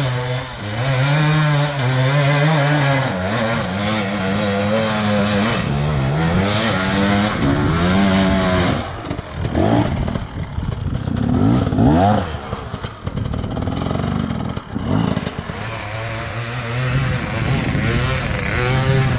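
Two-stroke dirt bike engine being ridden hard: the pitch climbs in steps as it accelerates through the gears, then several sharp revs rise and fall in the middle before it settles into steadier running near the end.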